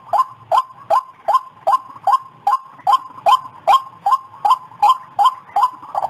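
White-breasted waterhen calling, a short note repeated evenly about two and a half times a second.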